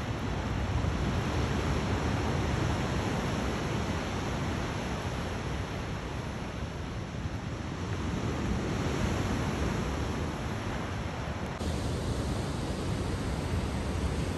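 Ocean surf breaking and washing over rocks: a steady rush of white water that swells and eases. It changes abruptly near the end.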